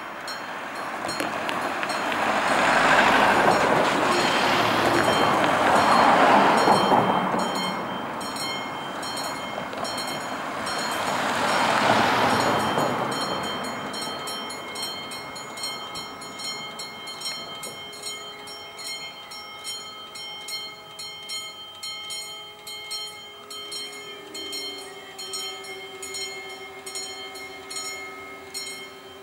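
Level-crossing warning bell ringing in rapid, even strokes while the barriers come down. In the first half, road vehicles drive over the crossing and are the loudest sound, passing about 3, 6 and 12 seconds in. A steady hum is added in the second half as the barrier arms lower.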